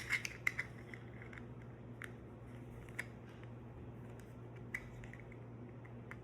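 Small plastic parts being handled: a few light clicks and taps in the first second, then occasional single clicks, over a steady low hum.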